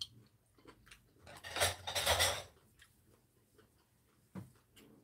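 Eating noises: chopsticks and a spoon clicking against ceramic soup bowls, with one louder rush of noise lasting about a second, about a second and a half in, a slurp of hot sujebi soup.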